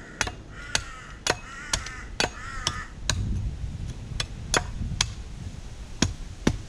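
A blade chipping at a coconut's husk in a dozen or so sharp, light chops, about two a second, carving down toward the tip of the shell to get at the juice. A bird calls three times in the first few seconds.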